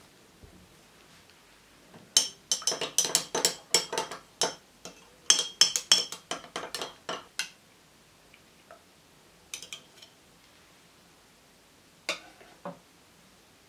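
A metal spoon stirring milk in a glass mason jar, clinking rapidly against the glass in two runs of a few seconds each, about four or five clinks a second. A few single clinks follow later.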